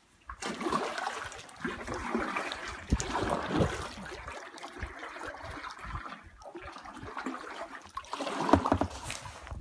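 Water splashing and trickling around a kayak being paddled, with a louder spell of splashing starting about half a second in and another near the end.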